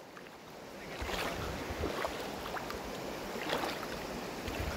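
Shallow river rushing over stones and gravel, swelling about a second in, with a low rumble underneath and a few brief splashes.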